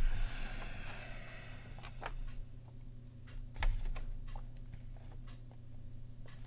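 Slow, irregular keystrokes on the Zilpzalp ergonomic keyboard's Kaihua (Kailh) Twilight low-profile switches, about one or two clicks a second.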